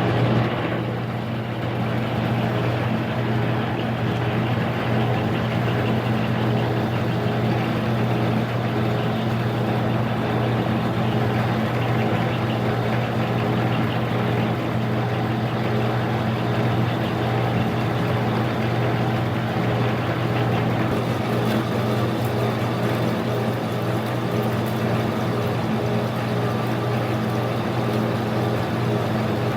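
Harbor Freight mini lathe running under its 1 horsepower AC motor and mechanical variable-speed drive, a steady hum, while it takes a deep 200-thousandths cut on the workpiece.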